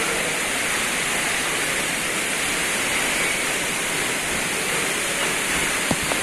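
Waterfall: a steady rush of falling water, with two short clicks near the end.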